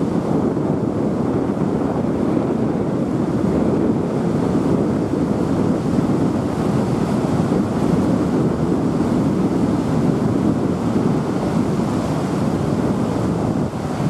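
Steady, loud rushing noise of wind and river water, with no distinct calls or other events.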